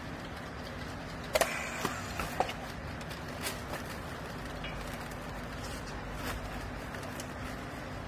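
A few sharp clicks and knocks from a handheld battery strapping tool and plastic strap being worked around a compressed clothing bale, bunched about a second and a half to two and a half seconds in, with one more near the middle. Under them runs a steady low machine hum.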